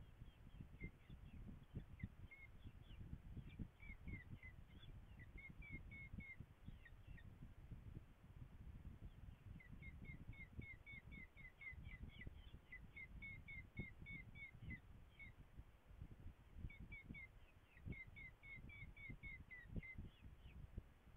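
Faint, rapid series of short high chirping calls, typical of falcon nestlings begging while being fed. They come in three runs separated by short pauses, over a low, constant rumbling noise.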